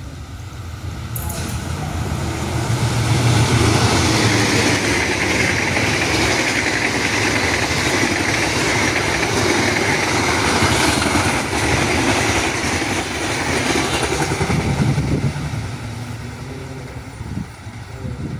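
Diesel-hauled passenger train passing at speed: the rumble builds as the locomotive nears, the coaches' wheels rush past for about ten seconds, then the sound fades away.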